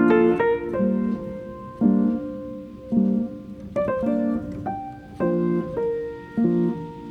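Background music: piano chords recurring about once a second under a held melody line.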